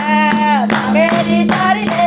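Live Nepali Teej folk song: voices singing over a madal hand drum, a jingling tambourine and hand clapping in a steady beat.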